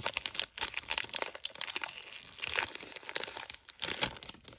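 Metallic foil wrapper of a 1998 Topps WCW/nWo trading card pack crinkling and tearing as gloved hands rip it open. A dense run of crackles that thins out near the end.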